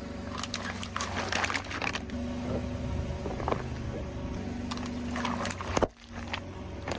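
A car engine runs steadily at a low idle while objects crackle and crunch under a tyre in two stretches, about half a second in and again around five seconds in. The sound cuts off abruptly near the end.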